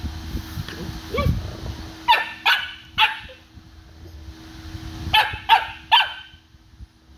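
A dog barking in two quick bursts of three short, sharp barks, the second burst about three seconds after the first.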